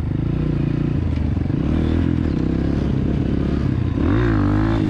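ATV engine running as the machine rides along at low speed, its pitch rising about four seconds in as the throttle opens.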